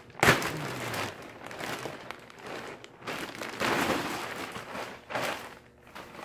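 Clear plastic packaging bag crinkling and rustling as it is handled and pulled open, in irregular bursts, loudest just after the start.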